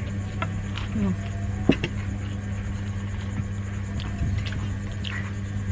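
Eating sounds: a spoon clinking and knocking against a bowl with chewing, one sharper knock about two seconds in, over a steady low hum.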